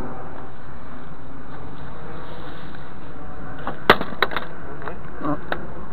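Steady background noise, with a sharp knock about four seconds in followed by a few lighter clicks.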